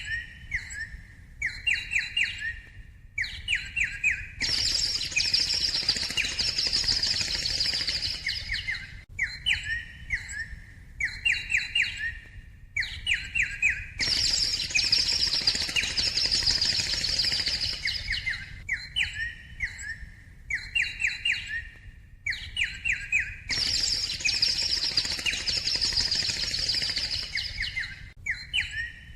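Birds chirping in a cycle that repeats about every nine and a half seconds: runs of quick, sharp chirps, then about four seconds of dense, high twittering, looped like an added recording.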